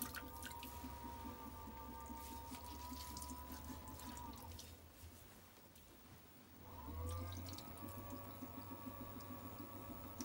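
Electric potter's wheel motor whining steadily, then winding down and stopping about four and a half seconds in, and speeding back up to a steady whine about seven seconds in. Faint wet squelching of hands working slip-covered clay on the wheel.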